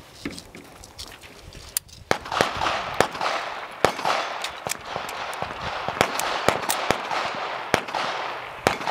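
Pistol shots fired at steel plate targets: well over a dozen sharp cracks at irregular spacing, often only a fraction of a second apart, starting about two seconds in, over a steady hiss.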